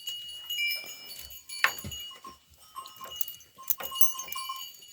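Small bells on livestock tinkling, with scattered knocks, as sheep and goats are let out to graze.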